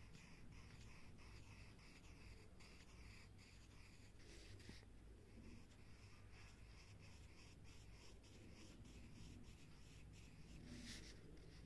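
Pencil lead scratching on paper in quick, short repeated strokes, a few a second, as small loops are drawn. Faint.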